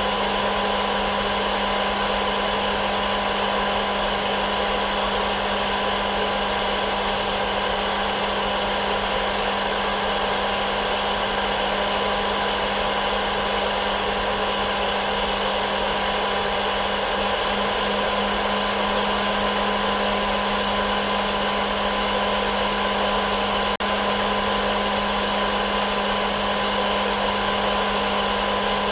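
Hair dryer running steadily as a white-noise track for baby sleep: a constant whoosh of air over a steady motor hum. It drops out for an instant about 24 seconds in.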